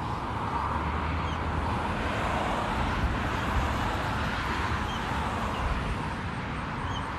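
Steady traffic noise with a car going past, swelling over the first few seconds and easing off. Faint short bird chirps come through every second or two.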